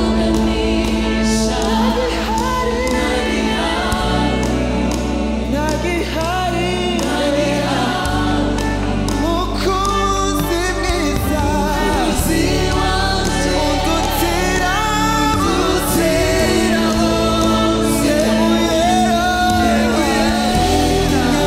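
Live gospel band: a group of singers on microphones sing lead and backing parts over keyboard, bass guitar and drums, with the bass notes changing every few seconds under a steady beat.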